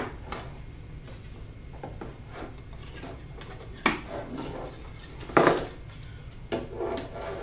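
Pre-wired I/O conversion modules being seated and locked into a sheet-metal mounting plate: a handful of sharp clicks and metal knocks, the loudest about five and a half seconds in, with light handling and rubbing between.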